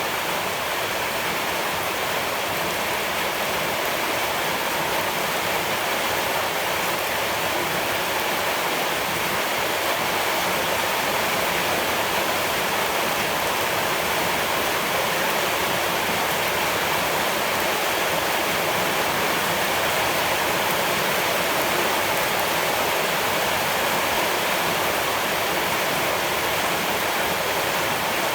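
Steady, unbroken rush of running water, even and constant throughout.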